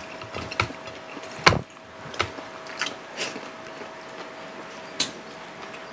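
Close-miked eating sounds as two people eat rice and fried milkfish by hand: scattered sharp mouth clicks, smacks and fingers on plates. A louder knock comes about a second and a half in and a sharp click about five seconds in, over a faint steady hum.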